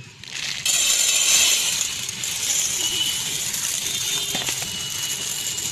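Dry seeraga samba rice poured into a stainless steel bowl: a dense hiss of small grains striking the steel, starting suddenly under a second in and strongest for the first second or so.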